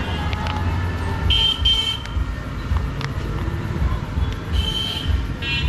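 Road traffic rumbling, with several short vehicle horn honks: two in quick succession about a second in, and more near the end.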